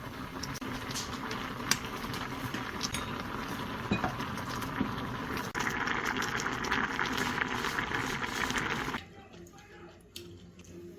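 Food cooking in a pot on the stove: a steady bubbling hiss that grows louder about halfway in, with a few light clinks of utensils, cutting off abruptly about nine seconds in.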